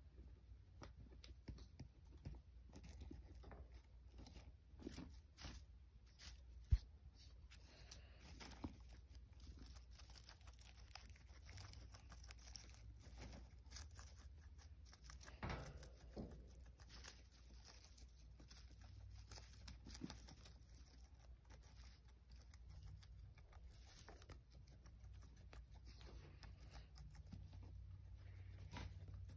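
Faint, irregular crunching and tearing of a guinea pig biting and chewing a lettuce leaf, with light rustling of hay bedding and one sharp click about seven seconds in.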